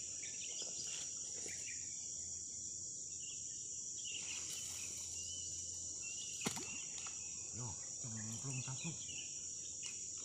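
Steady, high-pitched chorus of insects, with one sharp click a little past the middle.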